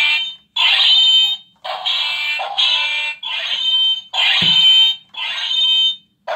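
Electronic sound effects from battery-powered light-up toy swords: harsh buzzing, clanging bursts just under a second long, repeated about once a second with short gaps. One knock about four and a half seconds in, as the plastic blades strike.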